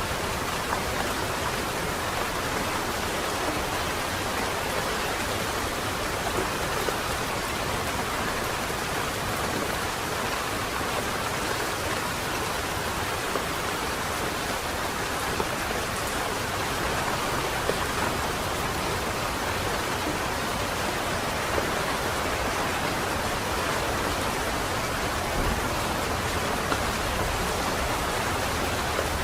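Steady light rain falling on leaves and hard surfaces, an even hiss with small scattered drip ticks.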